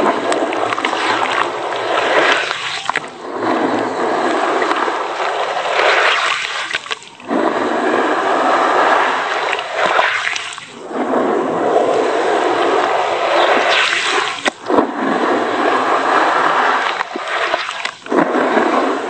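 Hands stirring and squeezing wet cement and sand in a tub of water: sloshing and splashing that comes in waves a few seconds long, with brief pauses between strokes.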